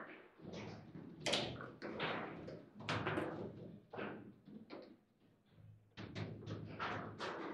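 Table football game in play: the ball cracking against the plastic figures and the table's walls, and the rods clacking, in irregular sharp knocks with a brief lull about five seconds in.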